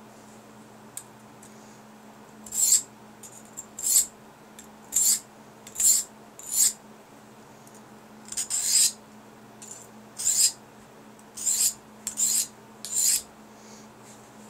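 Blunt stainless steel kitchen knife drawn across the diamond side of a Fallkniven DC4 whetstone to reprofile the dull edge. About eleven short strokes, roughly one a second, start about two and a half seconds in.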